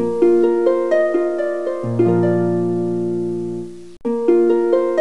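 Background music of plucked-string notes, a gentle melody over low held bass notes. It cuts out for a moment about four seconds in, then starts again.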